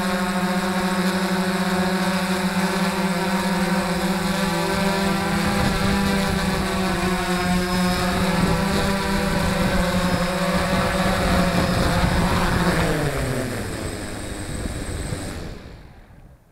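DJI F550 hexacopter's six brushless motors and propellers, heard from on board, running with a steady high hum, then spinning down with a falling pitch as it lands and cutting out near the end.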